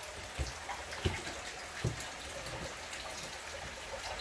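Soft kitchen handling sounds while nigiri is being made: three light, dull knocks over a faint, steady hiss.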